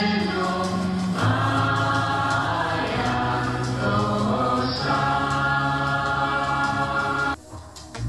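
Choir singing in slow, held chords over a steady low drone, changing chord a couple of times; it cuts off suddenly shortly before the end.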